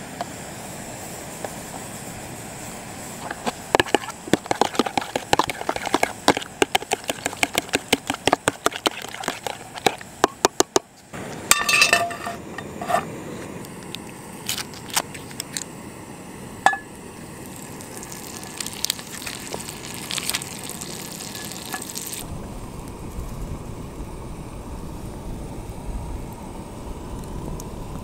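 A utensil beating whitebait and egg together in a plastic container: a quick run of clicks, about five a second, for several seconds. After it come scattered knocks and clinks, and near the end a low steady rumble sets in.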